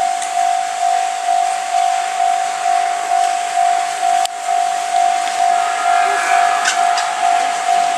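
Japanese level-crossing electronic warning bell ringing, a clanging tone repeated about twice a second, over a steady rushing noise, with a brief squeal about six to seven seconds in.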